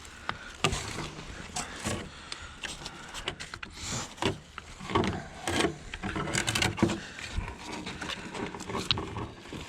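Rocks knocking and scraping as they are placed by hand into an opening in a septic distribution box: a run of irregular sharp knocks and clicks.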